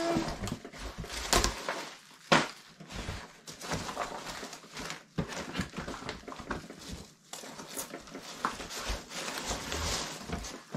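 Hands rummaging through packing peanuts in a cardboard box: irregular rustling and crunching with scattered knocks against the cardboard, the sharpest about two seconds in.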